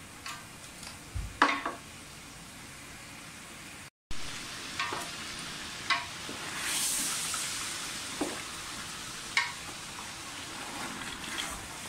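Chicken pieces frying in oil and garlic-ginger paste in a large metal pot, a steady sizzle, while a wooden spoon stirs them with scattered knocks and scrapes against the pot. The sound drops out briefly about four seconds in.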